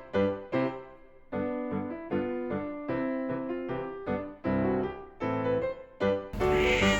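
Background music carried by a piano-like keyboard playing a bouncy run of short notes. A brief burst of noise sounds near the end.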